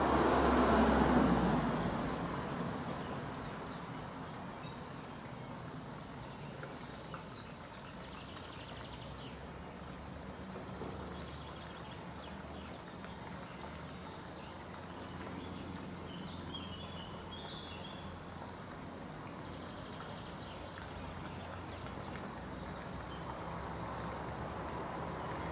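Scattered short, high chirps of small birds over a steady outdoor background hum. A low rumble of a passing vehicle fades out over the first two seconds and builds again near the end.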